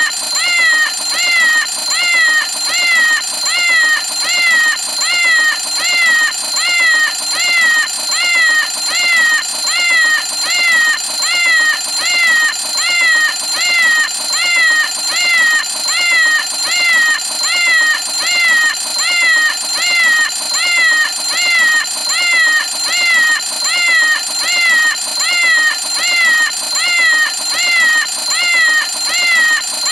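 Cartoon cat alarm clock (the Meow o' Clock) ringing with a repeating meow: short cat-like meows, about three every two seconds, over a steady high ringing tone.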